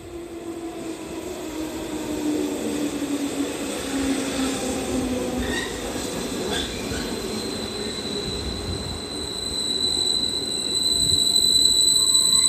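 Electric commuter train pulling in along a station platform and braking: a whine falling in pitch as it slows, a few clicks of the wheels over rail joints around the middle, then a high, steady brake squeal that grows loudest near the end as it comes to a stop.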